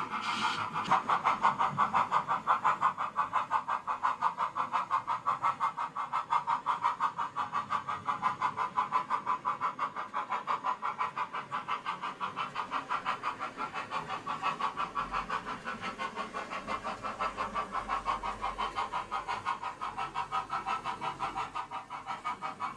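Model steam locomotive's DCC sound decoder playing a steady, rapid exhaust chuff of about four to five beats a second through its small onboard speaker as the locomotive runs with a train.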